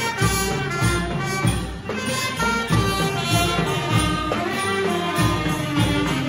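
Thai traditional brass band (trae wong) playing a melody on trumpet and alto saxophones over a steady beat of about two strokes a second.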